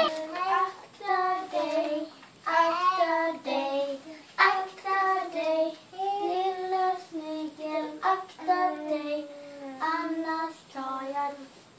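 A child singing a Swedish children's song in short phrases of held notes.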